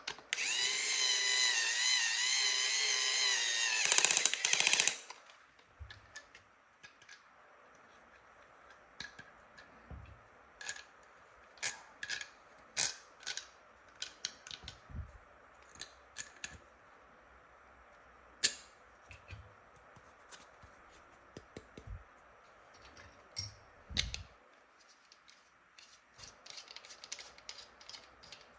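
A toy power tool's electronic sound effect plays for about five seconds as a loud, wavering pitched whir, then stops. Scattered clicks and a few light knocks of plastic toy pieces being handled follow.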